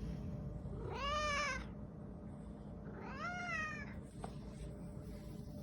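Domestic cat meowing twice, about two seconds apart. Each meow is a drawn-out call that rises and then falls in pitch. The cat is asking to be let out into the garage.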